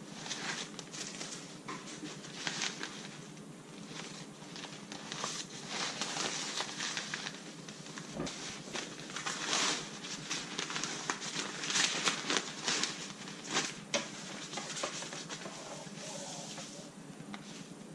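Irregular rustling and crinkling of a fabric drawstring bag being handled, its cord loosened and opened, and a coiled tow strap pulled out of it. The rustles come in uneven bursts and are busiest in the middle.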